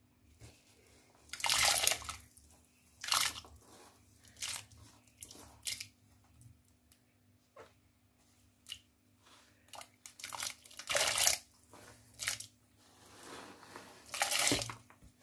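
Chopped onion, peppers and celery dropped in batches into a steel pot of water near the boil: short irregular splashes and rustles, a few seconds apart, loudest about a second in, about eleven seconds in and near the end.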